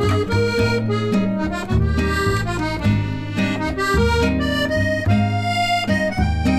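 Background music: an instrumental passage of a Korean-language song, a melody over a bass line.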